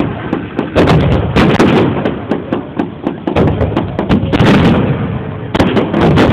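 Fireworks display: aerial shells launching and bursting, a rapid run of loud sharp bangs with clusters of several bangs close together.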